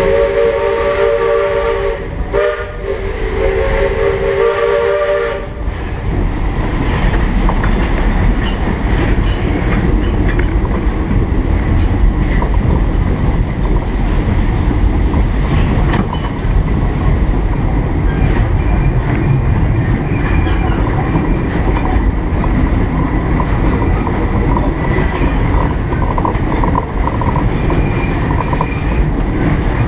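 Steam whistle of the 1915 Baldwin steam locomotive Wainiha blown in two long blasts, then the train running along the track with a steady low rumble.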